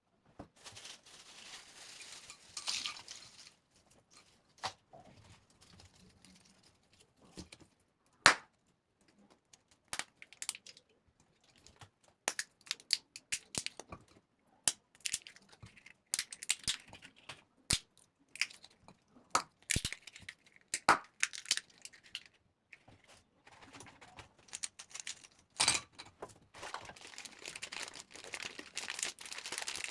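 Close-miked candy ASMR: plastic wrappers crinkling and tearing near the start and again in the last few seconds, with sharp crunches and cracks scattered through the middle as hard candy is bitten.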